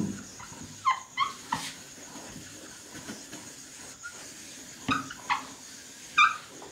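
Whiteboard duster wiping across the board, with a few short, high squeaks: about a second in and twice near the end.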